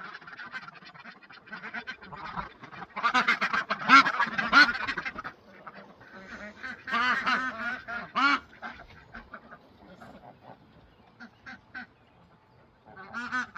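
Domestic ducks and geese calling: two flurries of rapid quacks and honks, about three and seven seconds in, then scattered single calls that thin out.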